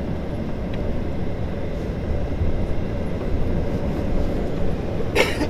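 Inside the cabin of a Boeing 737-800 taxiing on the ground: a steady low rumble from its CFM56 engines and the rolling gear. A single sharp knock comes near the end.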